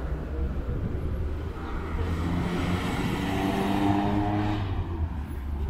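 A car driving past on the street, its engine tone swelling to its loudest about four seconds in and then fading, over a steady low rumble.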